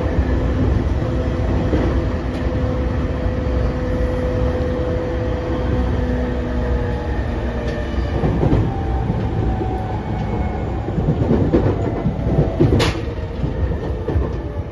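Running sound inside a JR East E231 series 0 commuter train: a steady rumble of wheels on rails with a faint motor whine slowly falling in pitch, and a sharp knock near the end.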